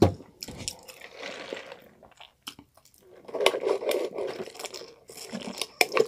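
Close-miked mouth sounds of a person eating: chewing with small crunches and clicks, then sipping a soft drink through a straw from a paper cup.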